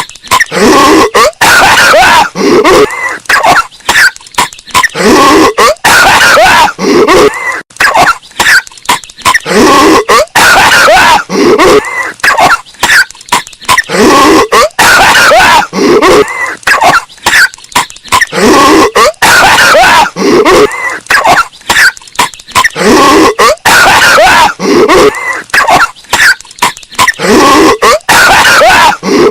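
Looped cartoon coughing fit: a voice-acted character hacking and coughing over and over in rapid runs. It is bass-boosted and very loud, with clipping distortion.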